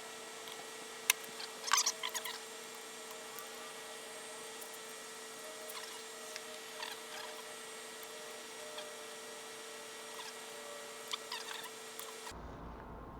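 Small metal clicks and taps from prying off the piston's wrist-pin retaining clips and handling the small engine parts. A few sharp ones come about two seconds in and again near eleven seconds, over a steady faint hum and hiss that cuts off near the end.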